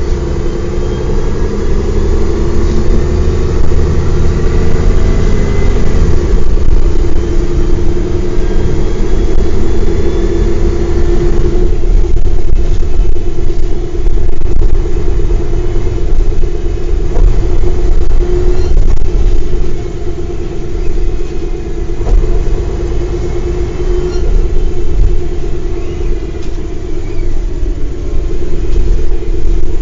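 Mercedes-Benz O405 single-deck bus's horizontal six-cylinder diesel engine running under way, with a heavy low rumble. Its pitch rises over the first few seconds as it accelerates, and the sound changes again about twelve seconds in.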